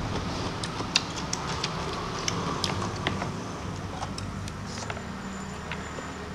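A person chewing a mouthful of rice eaten by hand, close to a lapel microphone, with scattered wet mouth clicks and smacks over a steady low hum.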